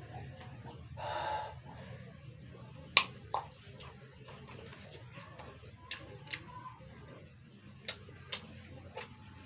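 Small birds chirping in short, high, falling notes, repeated every second or so. Sharp clicks come in between, the loudest about three seconds in, over a steady low hum.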